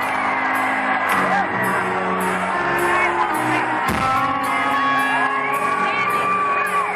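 Live rock band playing through a concert PA: a singer's sliding vocal line over bass, guitar and drums with a cymbal struck about twice a second.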